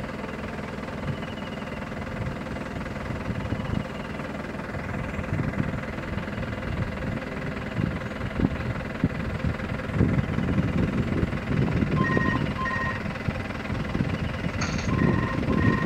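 Low, steady rumble of a safari jeep's engine idling, with irregular low buffeting that grows stronger in the second half. A few short, high beeping tones come twice near the end.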